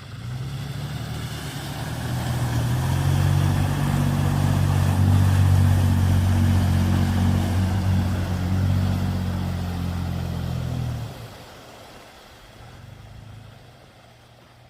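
Off-road SUV engine working hard under load, growing louder after a couple of seconds and holding a steady drone, then dropping away suddenly about eleven seconds in to a faint low hum.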